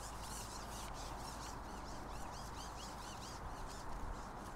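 A small bird gives a quick run of high chirps in the first half, over steady wind noise on the microphone.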